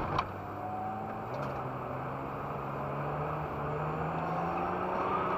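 1992 BMW 320 (E36) 2.0-litre straight-six engine pulling steadily in gear, heard from inside the cabin, its note slowly rising as the car speeds up. Two sharp clicks sound right at the start.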